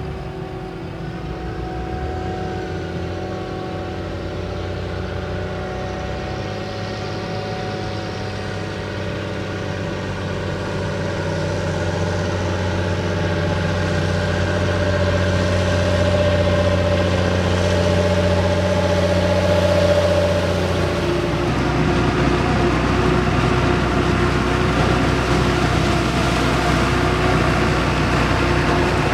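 Diesel engine of a large tractor or forage harvester running steadily, growing louder over the first twenty seconds as it nears. Its note changes about two-thirds of the way through.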